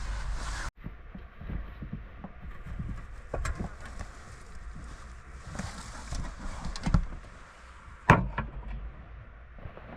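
A steady rushing noise cuts off abruptly under a second in. Then come scattered clicks and knocks of objects being handled, the sharpest about seven and eight seconds in.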